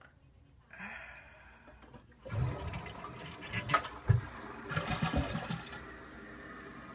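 A toilet flushing: a rough, gurgling rush of water for about three seconds that settles into a steady hiss near the end.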